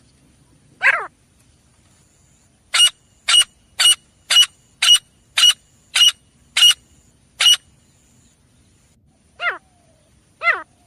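Grey francolin calling. One downward-sliding note comes first, then a run of nine short, sharp notes at about two a second, then two more downward-sliding notes near the end.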